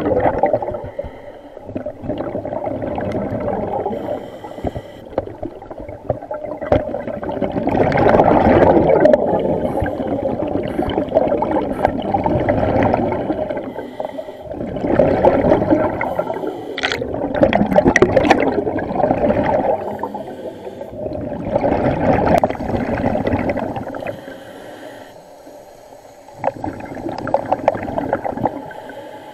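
Scuba diver breathing underwater through a regulator: long surges of exhaled bubbles gurgling and crackling, repeating every several seconds with quieter spells between breaths.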